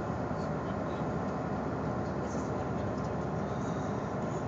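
Steady rushing wind buffeting a phone microphone on the open deck of a cruise ship under way, over the ship's low rumble.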